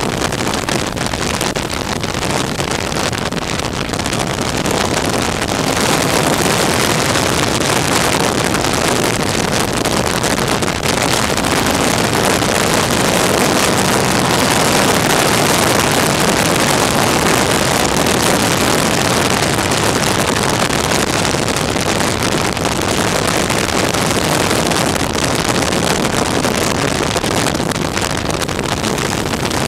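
Motorcycle riding at road speed, recorded from a camera mounted on the bike: a steady rush of wind on the microphone over the engine and tyre noise, getting louder about six seconds in.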